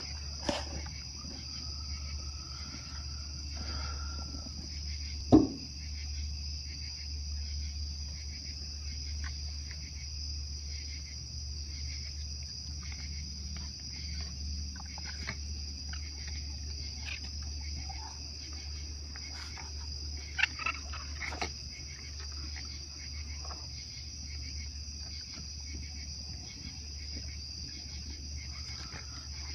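Steady high-pitched chorus of night insects, with a low steady hum underneath. A few scattered knocks and clicks break in, the loudest a sharp thump about five seconds in and a small cluster around twenty seconds in.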